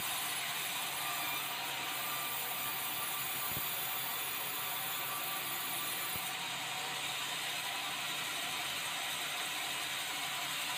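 Sawmill band saw running steadily and sawing red meranti timber being fed through it, with a couple of faint knocks of wood being handled.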